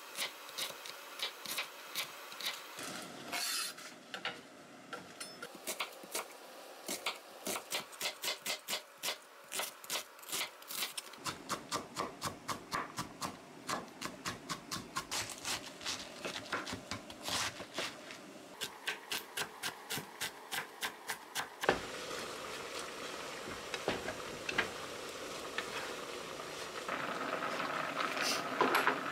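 Kitchen knife chopping vegetables (diced carrot, then onion) on a wooden cutting board: quick runs of sharp knocks, about three to four a second, broken by short pauses. Near the end a steady hiss from the pot on the stove comes in.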